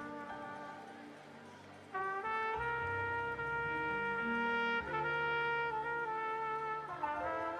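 Worship music led by a brass instrument, trumpet-like, playing slow, long held notes over low sustained accompaniment. The lead fades to a lull, then a new held phrase comes in about two seconds in, with note changes near five and seven seconds.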